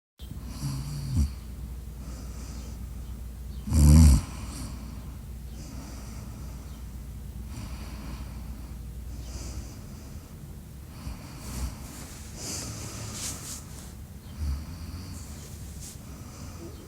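A sleeper snoring: a run of noisy breaths every second or few, with one short, loud snort about four seconds in.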